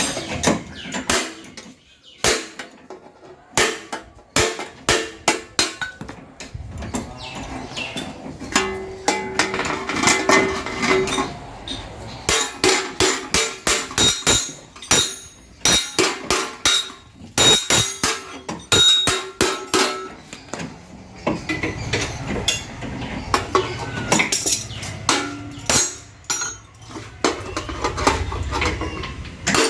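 Hammer blows on the steel sheet-metal body of a 1985 Maruti SS80, coming in runs of quick strikes with short pauses between, the metal clinking and ringing, as panels are knocked into shape ahead of welding.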